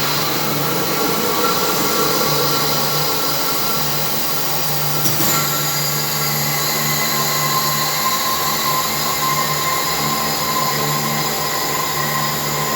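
Barrel washing machine running: a steady motor hum under a continuous high whine, whose upper tones shift about five seconds in.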